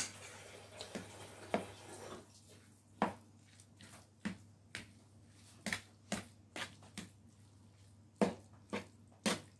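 Fork clicking and scraping against a serving tray while mixing food: irregular short, sharp clicks, about one or two a second.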